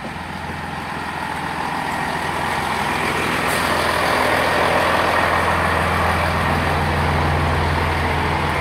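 British Rail Class 165 diesel multiple unit drawing into the platform, its underfloor diesel engines droning steadily. The sound grows louder over the first few seconds, then holds level.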